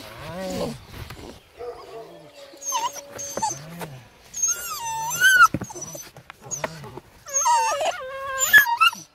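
Presa Canario puppy giving a string of high-pitched whines and yelps as it tugs at a bite pillow, louder and more frequent from about halfway through.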